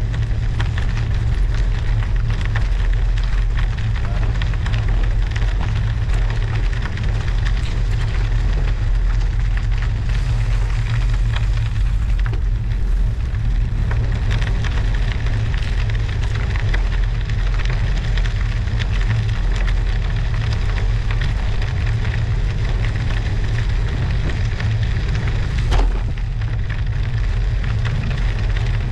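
Schwalbe Marathon Winter Plus 35 mm studded bicycle tyres rolling over a snowy, icy road, a steady crackling crunch under a heavy rumble of wind on the bike-mounted camera's microphone. A single sharper knock comes near the end.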